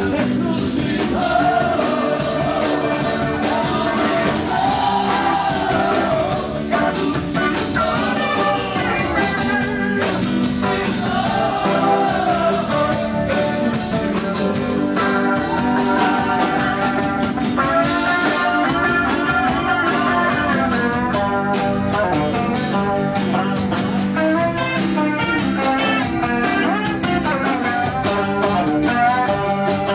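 A band playing a rock-style song, with singing over guitar accompaniment.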